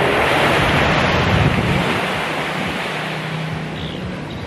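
Surf breaking and washing up a sandy beach, a loud rushing that swells in the first second or two and then eases off, with wind buffeting the microphone.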